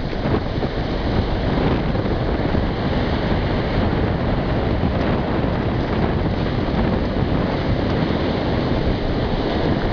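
Shallow surf washing in and out over sand, with wind buffeting the microphone in a steady low rumble.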